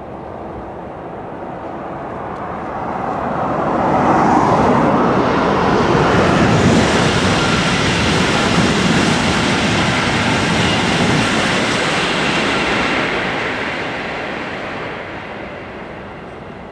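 High-speed train passing at speed. The rushing noise builds over the first few seconds, stays loud for about nine seconds while the train goes by, then fades away.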